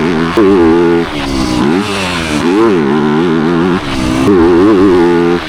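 Motocross dirt bike engine revving hard, its pitch climbing and dropping several times as the throttle is worked on and off.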